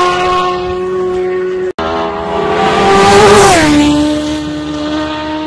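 Racing motorcycle engine at full throttle, a high steady note fading away after a bike has passed. After a brief cut, a second pass: the engine note builds as a bike approaches, drops sharply in pitch as it flashes by about three and a half seconds in, then holds its lower note as it fades.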